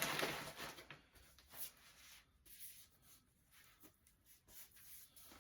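Faint rustling and small handling clicks as items are moved about by hand, loudest in the first second.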